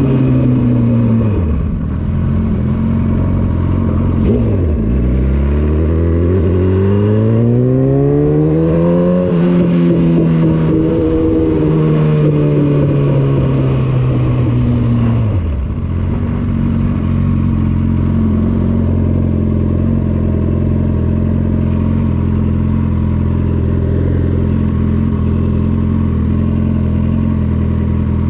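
Sport motorcycle engine heard from the bike itself: the revs drop, then climb steadily for several seconds under throttle, ease off, and from about halfway through settle into a steady idle.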